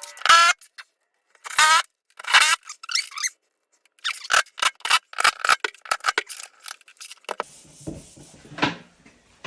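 Screws being driven and tightened into a wall-mounted grab bar: a few short squeaks, then a rapid run of clicks, then a scraping noise near the end.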